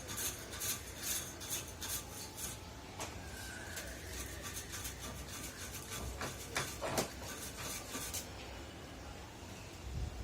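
Scrubbing strokes, about three a second, for the first couple of seconds, then scattered light clicks and knocks.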